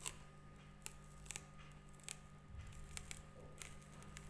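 Computer keyboard keys being typed: scattered single key clicks at an uneven pace, over a faint steady hum.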